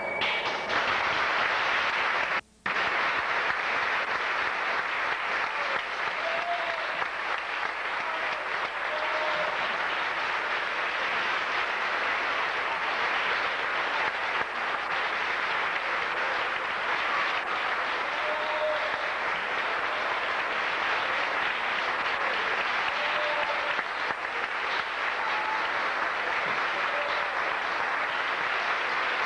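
Audience applauding steadily, with a momentary cut-out about two and a half seconds in.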